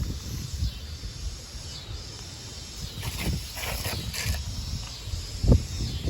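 Gusty wind buffeting the microphone, in uneven low rumbles and bumps, with a faint high insect-like call repeating about once a second.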